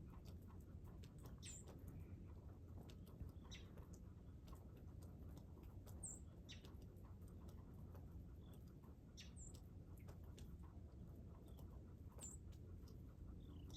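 Near silence, with faint, short high chirps and ticks scattered every second or two over a low, steady background rumble.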